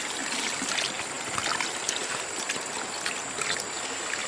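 Water running and trickling steadily, with scattered small splashes.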